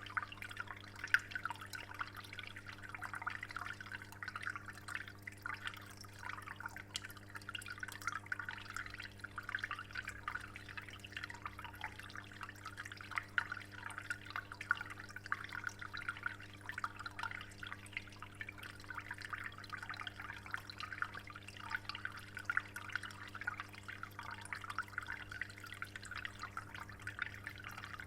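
Water dripping and splashing into an aquarium in a continuous fine patter, over a steady low hum.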